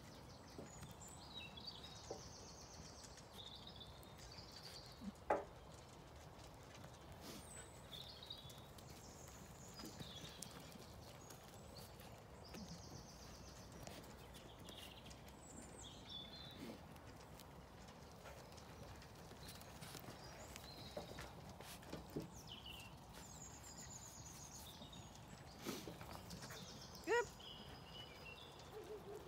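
Quiet farmyard ambience: faint birdsong at intervals, a few soft knocks, and one short sharp animal call near the end.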